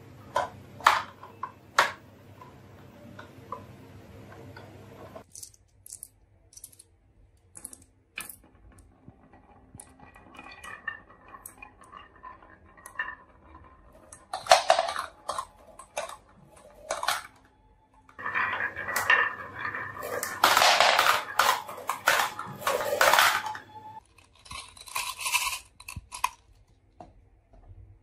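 Glass marbles rolling down a carved wooden wavy track, rattling in the groove and clinking sharply against one another, in several separate runs with the longest rattling stretches in the second half.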